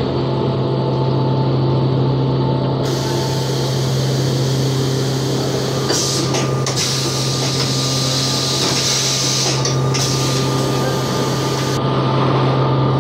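CNC vertical machining centre running a milling job on its fourth-axis rotary table: a steady low machine hum with a hiss of flood coolant and cutting that comes in about three seconds in, is strongest in the middle, and drops away near the end.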